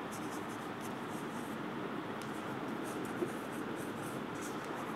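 Chalk scratching on a chalkboard in many short strokes as words are written, with one sharper tap about three seconds in, over faint room hiss.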